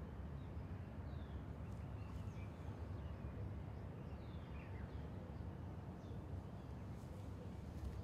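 Faint outdoor ambience: a steady low rumble with small birds chirping now and then in the background, several of the calls short descending notes. Two faint ticks come near the end.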